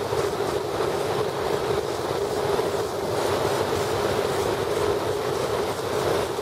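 Hovercraft engine and propeller running steadily, a loud, even drone with a strong hum.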